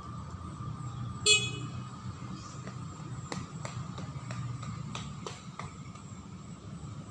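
A single short, loud beep of a beep-test (multistage fitness test) signal about a second in, over a steady low outdoor rumble, followed by a few faint ticks.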